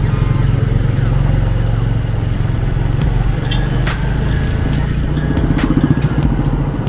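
Motorcycle engine running steadily, heard from the bike being ridden along a dark dirt road, with a few sharp knocks. The engine note swells briefly about five to six seconds in.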